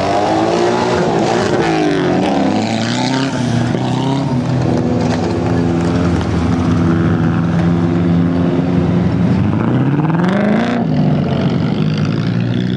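Autocross race car engines running hard on a dirt track, holding high revs through the middle; about ten seconds in, one engine revs up sharply and then drops off as the driver lifts or shifts.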